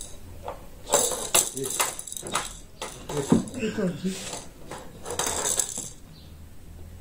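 Close-miked eating sounds: chewing and smacking of rice and stew eaten by hand, with a run of sharp clicks and crackles as fingers work the food on china plates.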